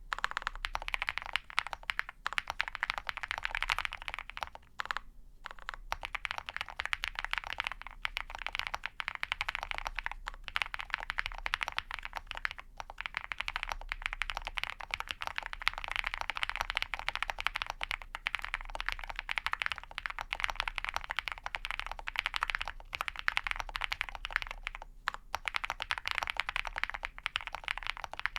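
Steady fast typing on a custom mechanical keyboard with lubed and filmed Ca Phe Sua Da linear switches, POM plate and PBT keycaps: a dense run of quick clacks, pausing briefly about five seconds in and again a few seconds before the end.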